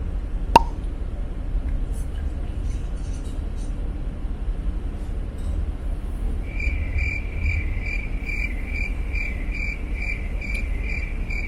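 Low rumble of a car heard from inside the cabin, with one sharp click just after the start. About six and a half seconds in, a high pulsing beep or chirp starts, repeating two to three times a second.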